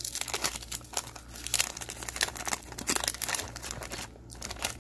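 Paper wrapper of a 1992-93 O-Pee-Chee hockey card pack crinkling and tearing as it is peeled open by hand: a dense run of crackles that thins out near the end.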